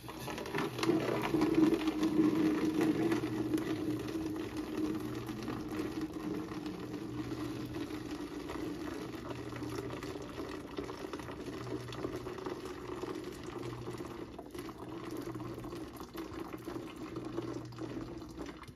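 Just-boiled water pouring in a steady stream from a kettle spout into an empty plastic milk jug, the jug filling. The pour stops near the end.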